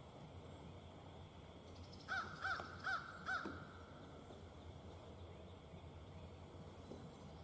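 An animal calling four times in quick succession, about two seconds in: short pitched calls, evenly spaced, against a faint background.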